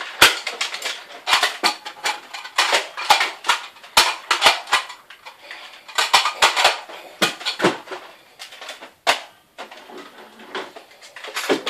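Toy Nerf blasters being cocked and fired: an irregular run of sharp plastic clacks and clicks, several a second, thinning out near the end.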